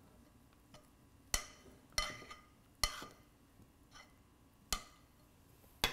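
A spoon knocking against a glass trifle dish while thick chocolate pudding is spooned in: about five short clinks at uneven intervals, each ringing briefly.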